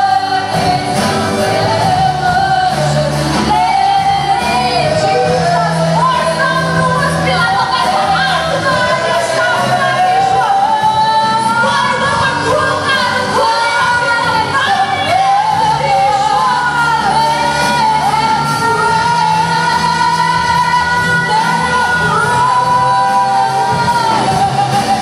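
Live worship band performing: several voices singing together over acoustic guitar and drums, with a long held sung note in the second half.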